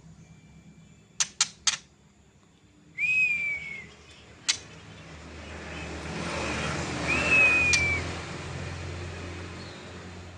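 A murai songbird giving long, drawn-out whistled notes (the 'ngelowo' style of song), each rising quickly then sliding slightly down, with several sharp short chips in between. A vehicle passes in the background, swelling to its loudest midway through.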